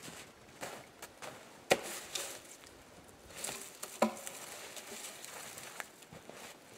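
Footsteps crunching in snow, with two sharp wooden knocks: a loud one just under two seconds in and another about four seconds in, as a pulp hook bites into a cut log.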